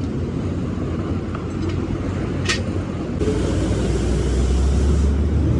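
Road traffic and a steady low engine rumble from vehicles on a busy road, with a single sharp metallic clink about two and a half seconds in. The rumble grows louder in the second half.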